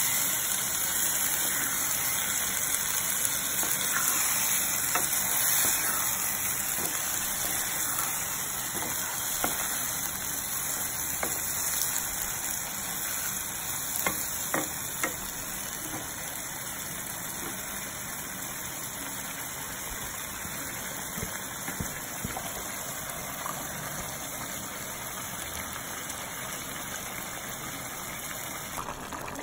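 Yogurt-marinated chicken sizzling in hot oil in a kadai on high heat, with a few knocks of a wooden spatula against the pan. The sizzle slowly grows quieter.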